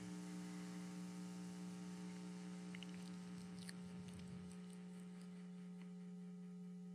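Steady low electrical hum with a stack of faint overtones, typical of mains hum in a recording or sound system; a few faint small clicks about three seconds in.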